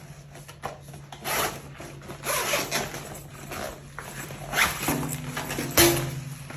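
Items from an unboxing being handled: a series of irregular rubbing, zip-like scraping strokes, with a sharp knock near the end.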